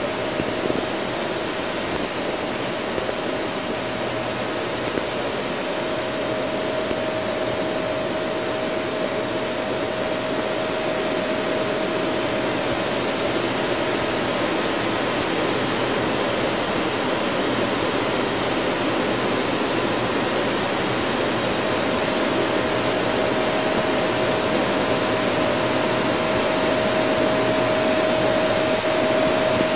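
CNC machining center face-milling an aluminium 7075 plate: a steady rushing machine noise with a steady high whine, which fades out for several seconds in the middle and then returns.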